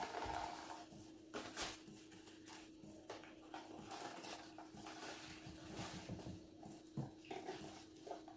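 Soft rustling and light tapping of a paper carton of icing sugar as it is tipped and shaken to pour into a measuring cup, with a faint steady hum underneath.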